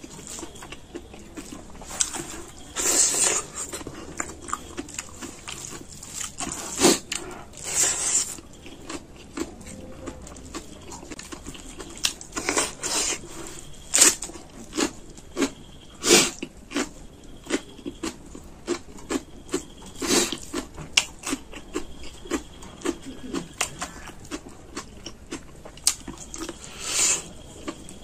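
Close-up eating sounds of a man eating rice, chicken curry and raw vegetables by hand: many short wet mouth smacks and chews, with a few longer crunchy chewing spells.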